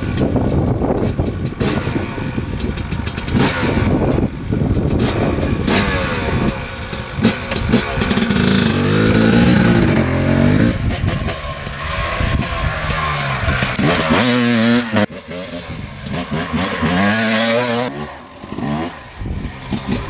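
Husqvarna TX300 300cc two-stroke dirt bike engine revving as it is ridden, its pitch climbing and dropping repeatedly with throttle and gear changes.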